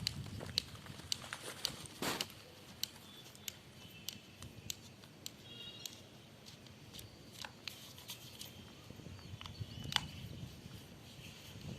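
Scattered light clicks and taps of tools and metal parts, irregular and a second or so apart, as a marble grinder with a failed bearing is taken apart by hand.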